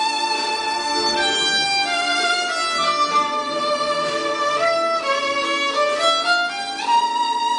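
Solo violin played with the bow: a melody of long held notes moving step by step, with note changes every second or so in the second half.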